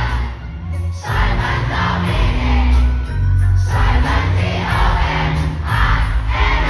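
Live hip-hop music through a concert PA, with a heavy bass beat and the crowd shouting along. The beat drops out briefly about a second in.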